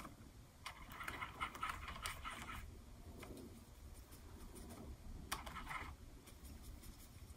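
Faint scratchy scrubbing of a water brush working watercolor paint, in two short spells, each starting with a small click.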